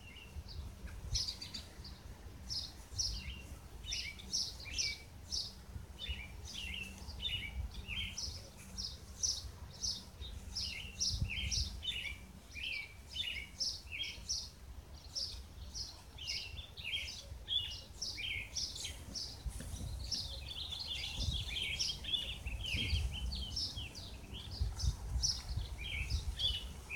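Small birds chirping continuously in quick runs of short, high chirps, over a low rumble.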